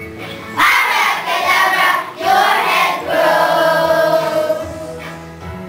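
Young children singing a song together as a group. The singing comes in loudly about half a second in, breaks briefly, then turns quieter near the end.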